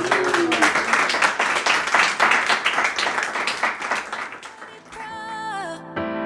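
A crowd applauding, many hands clapping together for about five seconds. Then music fades in near the end.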